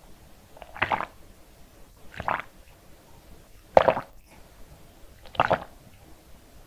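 Close-miked gulping: a person swallowing a drink in four separate gulps about a second and a half apart, the third the loudest.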